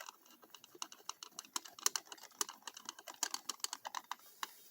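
Phillips screwdriver tightening a deadbolt's mounting screws: a quick, irregular run of light metal clicks and ticks.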